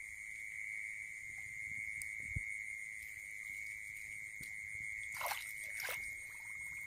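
Steady, high-pitched, unbroken trilling of night insects, with two short falling chirps about five and six seconds in.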